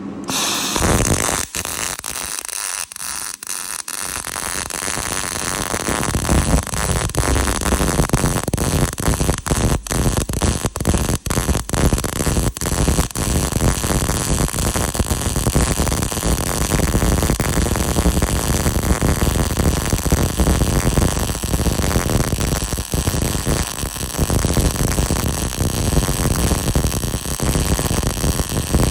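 CO2-shielded MIG welding arc from a Panasonic 500 welder: a steady crackling hiss, broken by many very brief dropouts.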